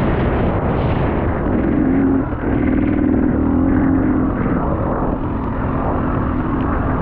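Dirt bike engine running hard under throttle, its note wavering, with a brief drop a little over two seconds in, over a heavy rushing noise.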